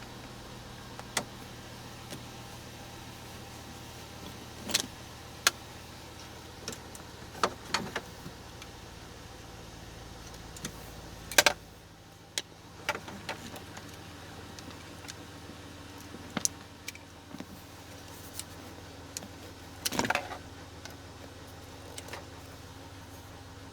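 Scattered clicks, rattles and knocks of hand work in a pickup truck's dash, the loudest about halfway through, over a steady low hum whose deepest part drops away at about the same point.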